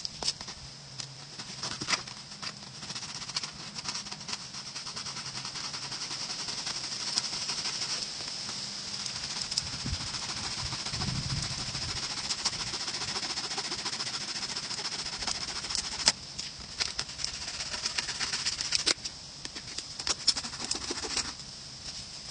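A saw cutting through the hard, dried shell of a gourd in steady rasping strokes, with a few sharper knocks, over a steady high-pitched background buzz.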